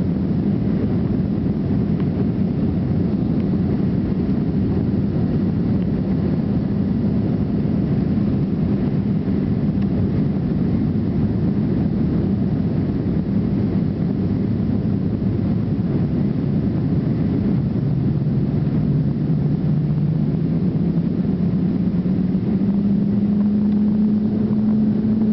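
Avro RJ100 jet airliner's four turbofan engines running in a steady, even drone on takeoff and climb. About three-quarters of the way through, a low tone rises in pitch and then holds.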